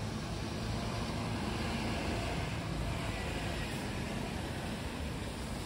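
City street traffic on a rain-wet road: a steady wash of passing cars and tyre noise, swelling a little about two seconds in.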